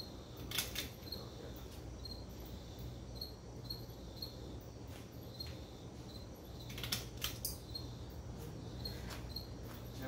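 A 1985 Hunter Original ceiling fan's oil-bath motor running with a steady low hum. A faint high tick repeats a little under twice a second, and a few louder clicks come through, one near the start and two about seven seconds in.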